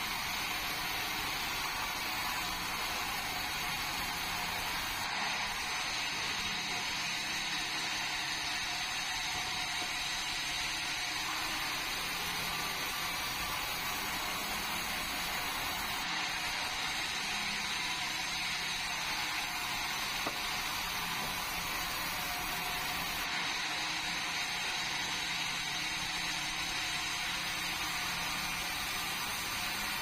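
Sawmill saw running and cutting through a red meranti log, a steady, even machine noise that never lets up.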